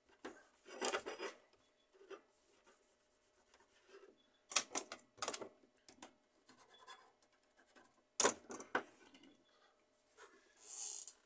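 Scraping and rubbing on laser-printer fuser parts as old toner is cleaned off, coming in short spells, with sharp clicks of parts being handled about four and a half and eight seconds in, and a short hiss near the end.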